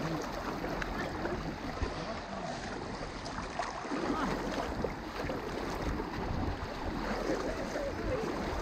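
Steady sloshing and swishing of river water around the legs of several people wading thigh-deep, with faint voices now and then.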